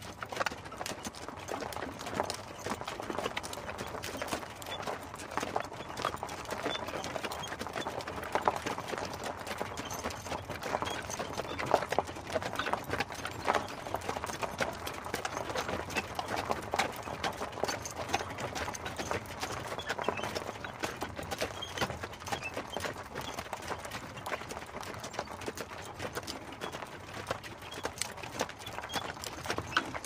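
Hooves of a two-horse team clip-clopping steadily as they pull an open carriage.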